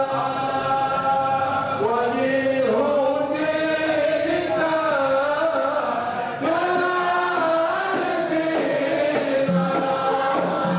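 A group of men chanting a qasida, a devotional Arabic hymn, in unison. The voices hold long notes that glide from pitch to pitch, with no pause.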